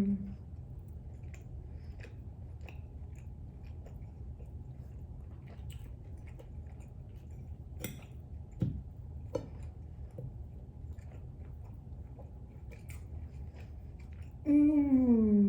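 A person chewing food quietly, with scattered small mouth clicks over a steady low hum. About a second before the end comes a loud one-second 'mmm'-like voice that falls in pitch.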